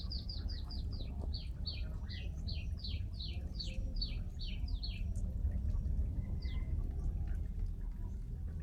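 A bird singing a run of about fifteen high, falling whistled notes, quick at first, then slower and longer, ending about five seconds in, with one more note a little later. Under it runs a steady low rumble.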